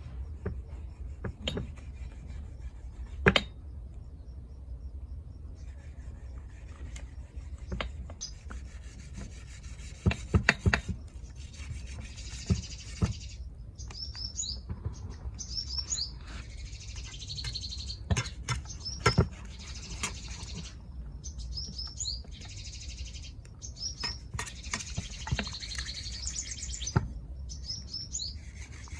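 Knocks and scrapes of a large chef's knife cutting meat from a raw camel head on a wooden cutting board, with a dozen or so sharp knocks, the loudest about three seconds in and a cluster around ten seconds. Small birds chirp short falling calls again and again in the background.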